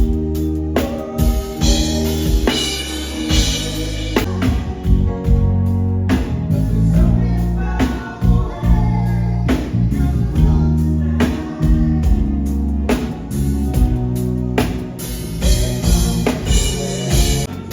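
Pop band music with a drum kit, electric guitar, bass and a singing voice, the drums hitting steadily throughout.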